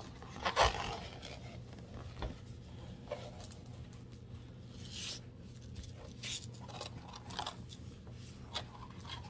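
Plastic-film-covered diamond painting canvas rustling and crinkling as hands unroll it and smooth it flat, in scattered short scrapes and rubs. The loudest crackle comes about half a second in.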